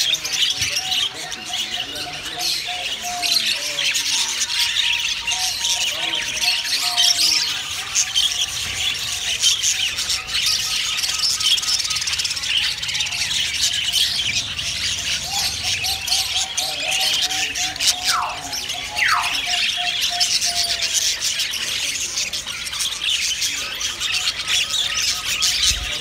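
A crowded flock of budgerigars chattering and chirping without a break, a dense busy warble, with two short rising whistles about two-thirds of the way through.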